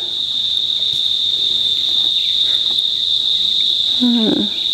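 Insects trilling steadily at one high pitch, without a break.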